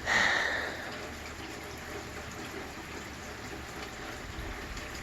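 Steady rain falling, a soft even hiss, with a brief louder swell of hiss in the first second.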